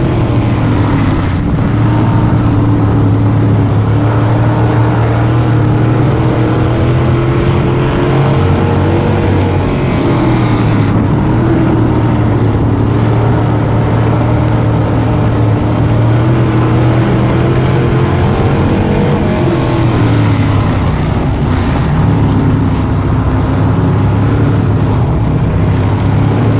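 Race car engines running loud and steady, their pitch rising and falling a little as they go on and off the throttle.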